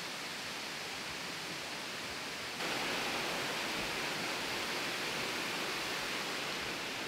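Steady rushing of a waterfall, with no distinct events; about two and a half seconds in it jumps suddenly louder and brighter.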